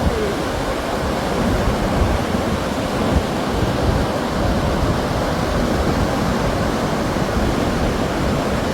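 Sea waves breaking on the shore, a steady rushing noise, with wind buffeting the microphone.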